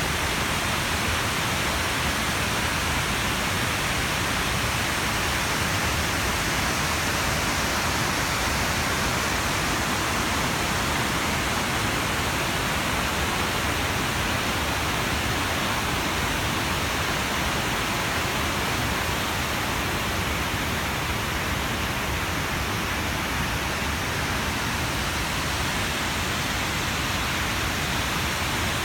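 River water spilling over a concrete weir and rushing through rocky rapids below: a steady, even rush of water.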